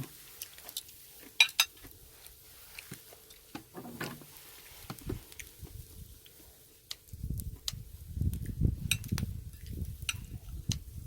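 Chopsticks and tableware clicking and clinking as food is picked up and a napa cabbage wrap is put together. About seven seconds in there are a few seconds of denser, muffled low handling noise mixed with more clicks.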